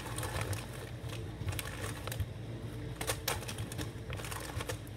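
Candy wrappers and a plastic bag crinkling and crackling in irregular sharp clicks as hands dig through a bag of Halloween candy.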